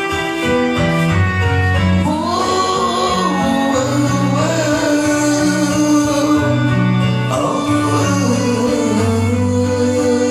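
Pop ballad music: guitar chords over steady bass notes, with a wavering melody line coming in about two seconds in.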